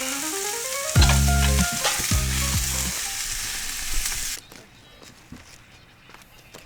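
Closing bars of a lo-fi song, bass and keys over a steady crackling hiss, cutting off suddenly about four seconds in. After that there is only faint, quiet ambience.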